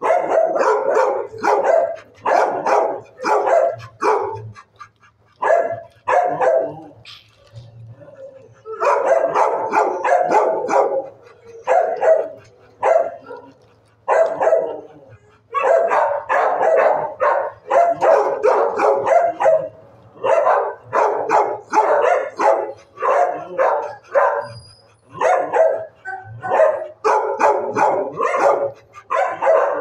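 Dogs barking in an animal-shelter kennel, rapid barks in long runs broken by brief lulls.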